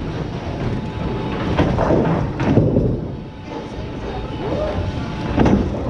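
Bowling alley noise: a bowling ball rolling down a wooden lane and pins clattering, with a few sharp knocks and background voices.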